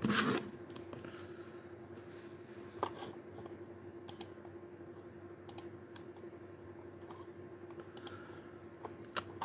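A few scattered light clicks and taps, spaced a second or more apart, over a faint steady hum, with a short rustle right at the start.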